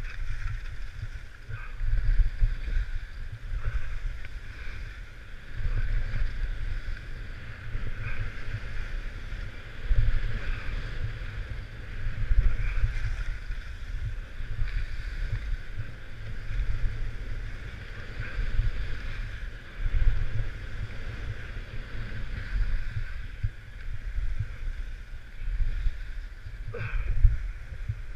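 Wind buffeting the microphone of a camera carried down a ski run, with the hiss of edges sliding and scraping over packed snow, swelling with each turn about every two seconds. A sharp knock near the end.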